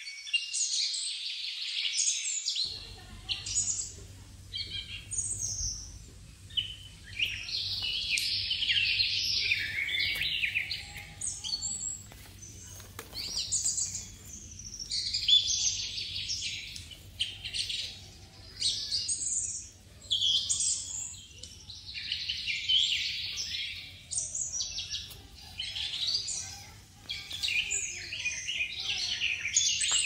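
Small birds chirping and twittering, many high-pitched calls overlapping in bursts a few seconds long with short lulls between.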